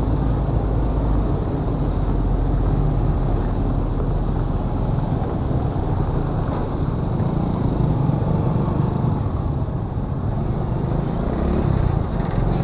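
Honda Win 100 motorcycle's small single-cylinder four-stroke engine running steadily while riding, with wind rushing on the microphone.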